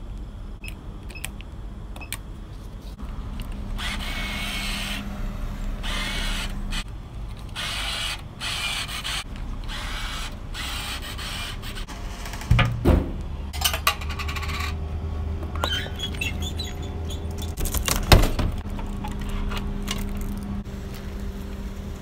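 Drink vending machine running: a motor hums steadily for about five seconds in the second half, with a loud knock as it starts and another as it stops.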